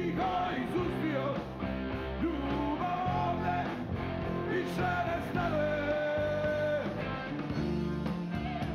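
Rock band playing live: an instrumental break in which a lead electric guitar plays bending, long-held notes over drums and rhythm guitar.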